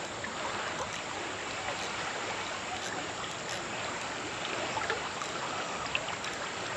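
River water running steadily over rocks, an even rushing hiss.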